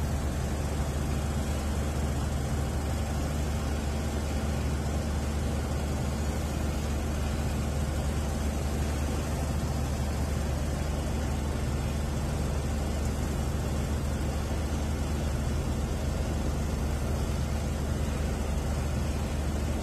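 A scrap LCD-panel shredding and recycling machine running steadily, with a low hum under an even mechanical hiss and no separate crunches or knocks.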